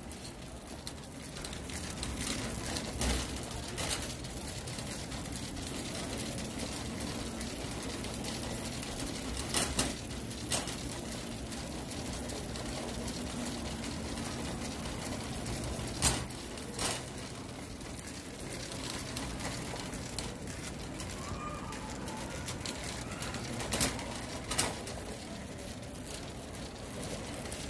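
Steady store background hum with a shopping cart rolling, and a few sharp clicks and rattles now and then from the cart.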